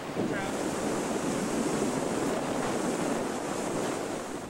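Steady rushing of water in a river rapid.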